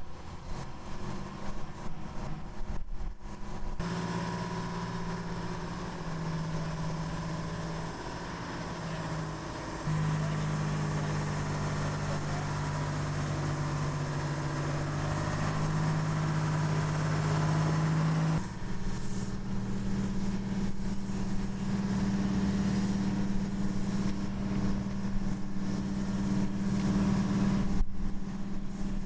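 Engine of the tow tractor pulling the external-tank transporter, running steadily with a low hum. The pitch and level shift abruptly a few times.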